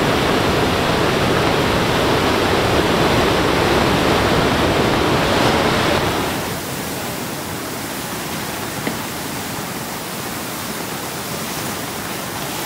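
Rushing, churning floodwater and breaking whitewater where a flash-flooded river runs into the surf: a steady rush of water that drops to a quieter rush about six seconds in.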